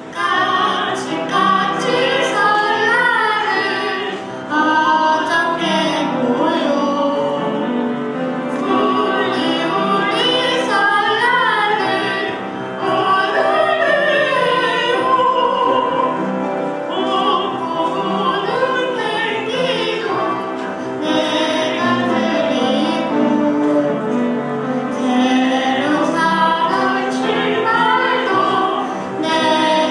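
A woman and a young girl singing a Korean Lunar New Year song into microphones, with musical accompaniment.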